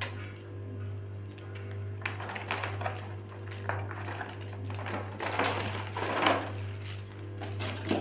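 Rainbow lorikeet bathing in a shallow water tray, flapping its wings and splashing in irregular bursts that start about two seconds in and are busiest near the middle, over a steady low hum.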